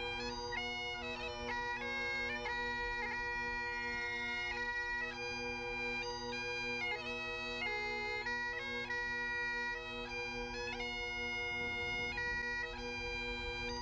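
Great Highland bagpipes playing a tune: a melody stepping between held notes with quick ornamental flicks, over a continuous steady drone.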